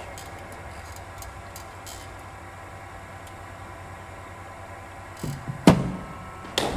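A steady low hum, then two sharp knocks almost a second apart near the end: a cricket ball launched from a bowling machine and struck by the bat.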